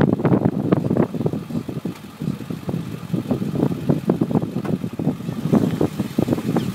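Strong gusty wind buffeting the microphone: a rough, rumbling noise that rises and falls irregularly.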